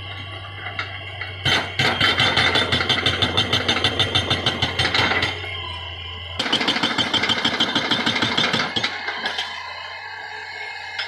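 Hydraulic breaker on a Hitachi EX200 excavator hammering rock in two long runs of rapid blows, about eight a second, with a short pause between them. The excavator's diesel engine runs steadily underneath.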